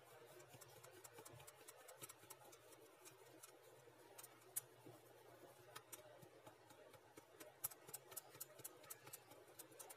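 Faint, irregular ticks and light taps from a metal mesh sieve being shaken and tapped over a glass bowl as flour is sifted through it, with a few sharper clicks in the second half.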